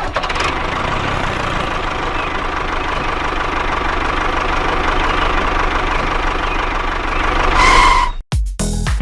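Mini tractor's engine running steadily. It cuts off suddenly about eight seconds in, just after a brief higher tone.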